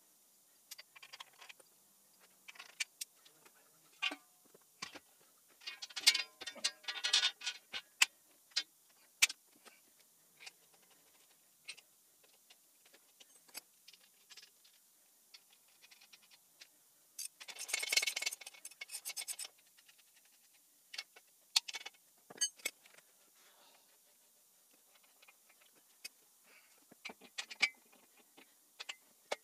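Steel bolts, pins and fittings clicking and clinking against the engine hoist's steel leg brackets while they are handled and fitted, in scattered sharp clicks with a cluster about six seconds in and a longer jangling metal rattle a little past the middle.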